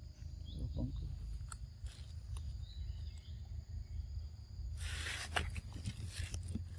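Outdoor forest ambience: a steady high insect drone over a constant low rumble, with scattered clicks and a short noisy burst about five seconds in.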